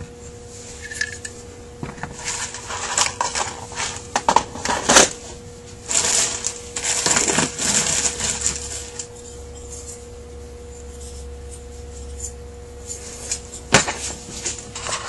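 Metal carburetor parts being handled and set down on a workbench: a series of light clinks and knocks, then a few seconds of rustling as parts and gaskets are moved about, and a couple more clicks near the end.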